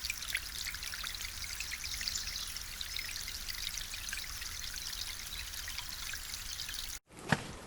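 Running water trickling and splashing steadily, like a small forest brook. Near the end it cuts off abruptly, and a single crunching footstep follows.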